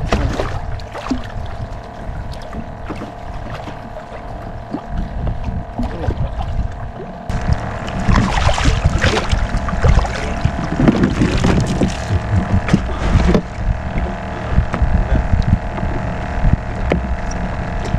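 A large hooked fish thrashing and splashing in the water against the side of a small boat as it is landed, loudest from about 7 to 13 seconds in. Under it runs a steady hum with a low rumble.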